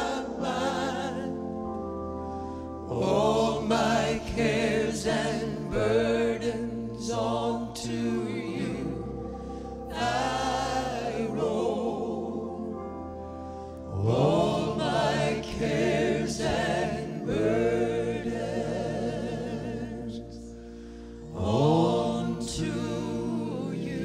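Live gospel song: voices singing long held notes with vibrato, in phrases that swell and fade, over a steady low accompaniment.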